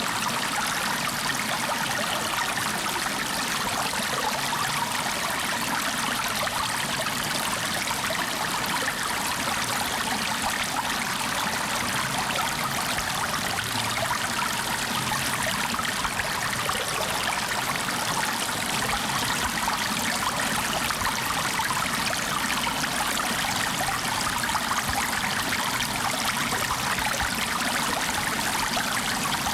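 Water flowing steadily in a stream or brook, an even, unbroken rush with a light trickling texture.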